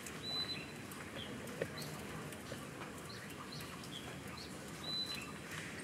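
A small bird chirping in the background: short high chirps repeating every half second to a second, with a brief held whistle-like note twice, over steady outdoor hiss.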